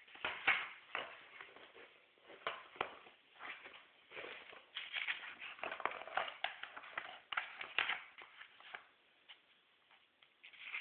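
Magazine pages rustling and crinkling in irregular bursts as a chimpanzee handles and turns them.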